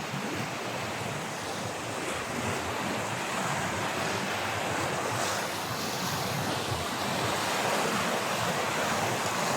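River water rushing over rocks: a steady rush of water noise that grows a little louder over the second half.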